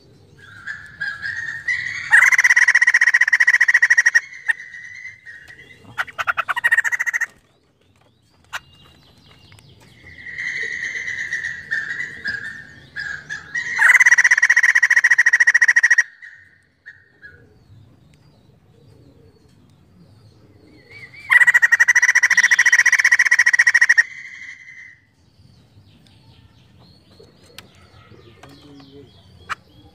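White-crested laughingthrush calling: three loud bouts of rapid calls, each about two seconds long, with softer calls between them.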